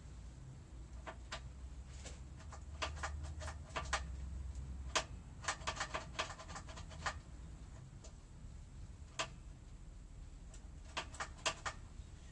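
Clusters of sharp clicks and short squeaky ticks from hands working on a motorcycle's brake parts during brake bleeding, over a steady low hum.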